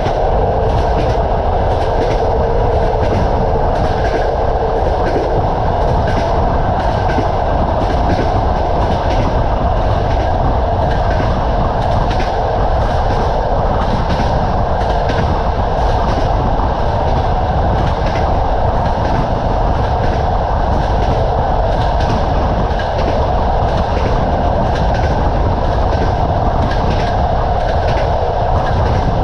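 Train wheels clattering over rail joints: a steady running rumble with quick, repeated clicks several times a second.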